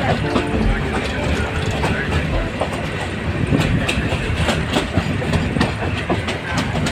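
Passenger train running along the track, its wheels clattering over the rail joints with a steady rumble.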